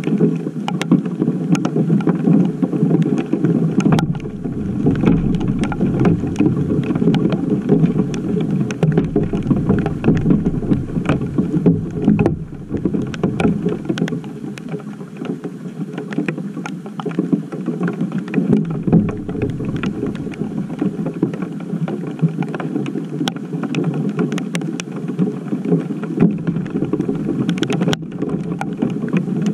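Rain and hail pelting the GoPro camera and the wooden deck around it: a dense, muffled patter with many sharp ticks from individual hits, easing slightly about halfway through.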